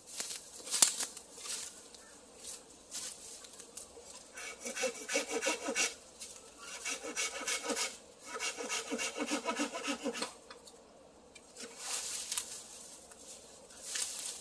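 Hand saw cutting through a bamboo stalk: quick back-and-forth strokes in three runs, with short pauses between them. Dry bamboo leaf litter rustles underfoot near the end.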